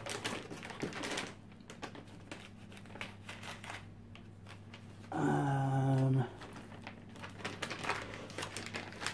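Plastic packaging crinkling and rustling as computer parts are handled, quieter through the middle. About five seconds in, a steady pitched hum lasts about a second, the loudest sound here, like a voice going "hmm".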